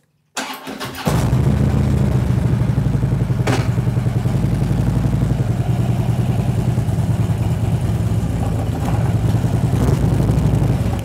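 Harley-Davidson V-twin motorcycle engine running steadily at low revs as the bike creeps forward, with one sharp click about three and a half seconds in.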